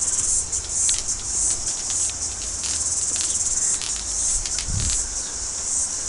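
Chorus cicadas singing together: a loud, steady high-pitched shrill with scattered sharp clicks running through it.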